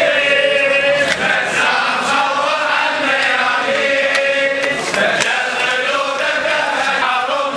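Male voices chanting together in a Shia Muharram mourning chant (latmiya), with long held notes.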